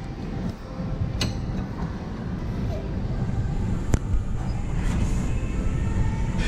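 Steady low rumble of gym room noise, with two sharp clicks: a light one about a second in and a louder one about four seconds in.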